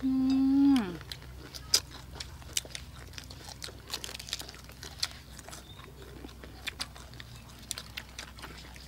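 A drawn-out hummed 'mmm' from a person's voice that falls in pitch at its end, followed by the crunching and chewing of crisp fried chicken legs, with scattered sharp clicks of bites.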